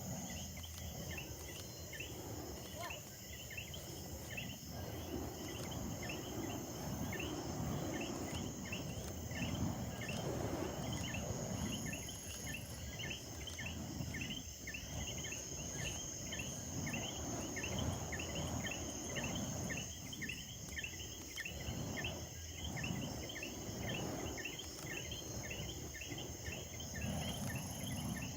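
Crickets chirping in a steady repeated rhythm, a few chirps a second, over a continuous high insect trill. Beneath them an uneven low rushing noise swells and fades.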